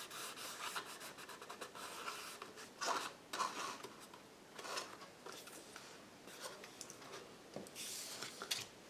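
Hands rubbing and pressing over a small cardstock box to smooth down freshly glued paper, a scratchy paper-on-paper rubbing that comes in several uneven bursts.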